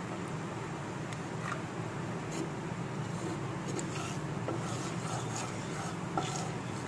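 A wooden spatula sliding through oil in a non-stick kadai, giving a few faint taps and scrapes, over a steady hiss and low hum. The oil is still heating and is not yet sizzling.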